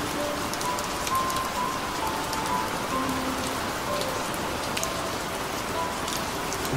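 Steady rain falling, with scattered single drop ticks, under soft, sparse music of a few held notes.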